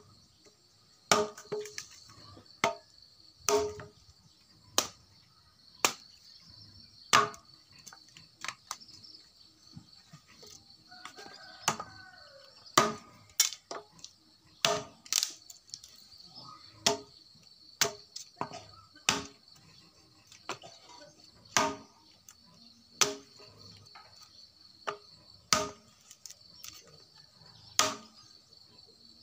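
Machete chopping dry branches: a sharp chop with a short woody ring about once a second, over a steady high trill of insects.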